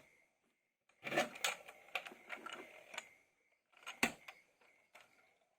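Faint handling noise from toy cars and their packaging being unboxed: a run of small clicks and rustles, then a single sharper click about four seconds in.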